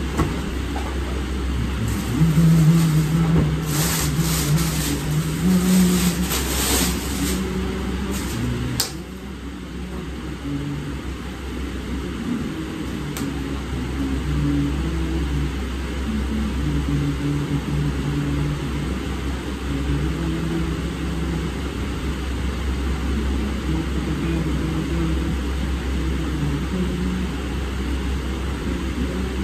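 Steady low rumble of an electric fan running close to the microphone, with low tones that come and go and shift in pitch. Clothing rustles from about two seconds in to about nine seconds in, ending in a sharp rustle.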